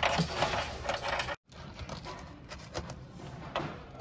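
Small metallic clicks and clinks of nuts and bolts being handled and fitted by hand at a car's underbody. They stop abruptly about a second and a half in, leaving fainter handling noise.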